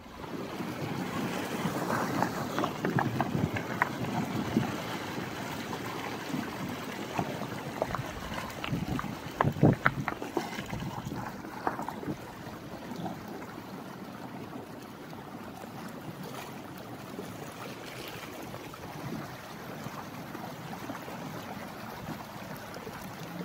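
Flash floodwater rushing and churning down a dry, stony wadi bed after heavy rain: a steady rush of water, louder in the first half, with a few sharper knocks, the loudest about ten seconds in.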